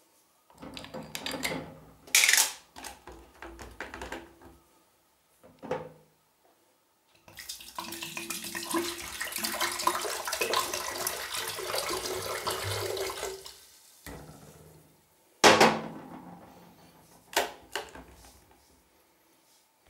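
Kitchen handling sounds: clicks and clatter of dishes or utensils, then water running for about six seconds in the middle, then a few sharp knocks near the end.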